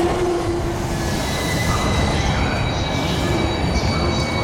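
Keihin-Tohoku Line electric commuter train pulling into the station platform under braking, the cars rumbling while a thin high-pitched wheel squeal sets in about two seconds in.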